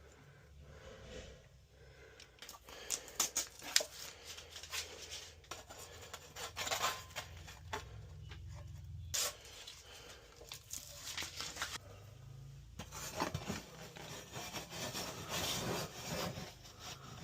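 Scattered clicks, snips and rubbing from hands working on transformer wiring: unused leads being cut and wire nuts twisted on.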